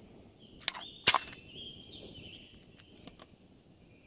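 Metadyne Thumper paintball marker firing: two sharp pops less than half a second apart, about a second in. A bird whistles a few notes over and after them.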